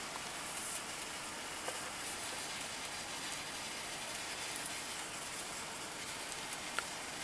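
Lake trout frying in a pan, a steady soft sizzle, with a couple of faint ticks.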